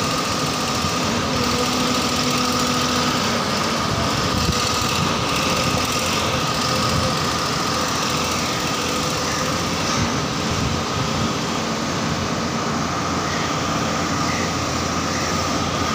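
Long-reach excavator fitted with a vibratory sheet-pile hammer running: a steady, continuous mechanical drone with a thin high whine held throughout.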